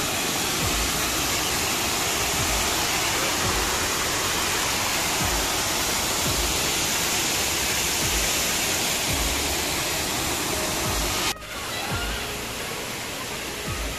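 Steady rush of river water pouring over a small concrete weir. It cuts off abruptly about eleven seconds in, leaving a quieter outdoor background.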